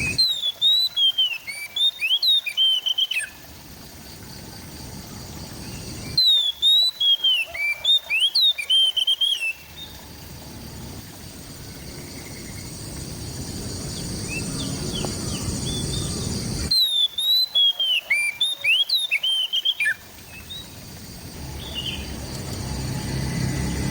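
Oriental magpie-robin (kacer) singing in three bursts of quick, sweeping whistled notes, each burst breaking off abruptly. Between the bursts a rushing hiss swells steadily louder.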